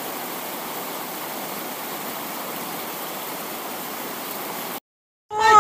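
Steady rushing noise of fast-flowing floodwater that cuts off abruptly near the end. After a brief silence, a loud pitched sound with a slightly wavering pitch begins just before the end.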